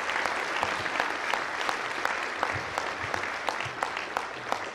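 Audience applauding at the end of a talk, a dense patter of many hands clapping that gradually thins out and gets quieter toward the end.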